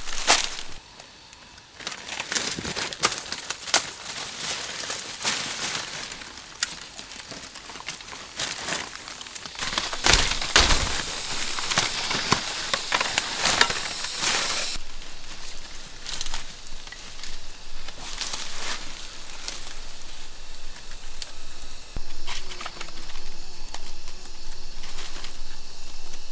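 Dry leaf litter, bamboo and leafy branches rustling and crackling irregularly as a person moves through forest undergrowth and handles foliage and bamboo sticks, with a louder thump about ten seconds in.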